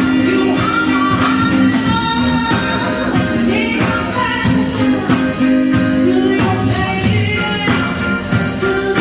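Rock or pop music with guitar and a steady beat, a voice singing over it.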